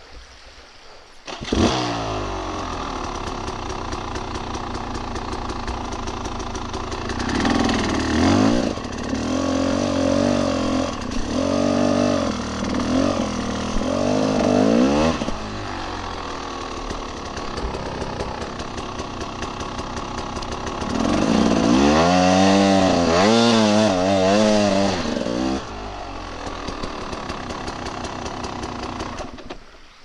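Dirt bike engine running as the bike is ridden, its pitch rising and falling with the throttle. It comes in suddenly just after the start, has two louder stretches of revving around eight to fifteen seconds in and again around twenty-two to twenty-five seconds, and drops away near the end.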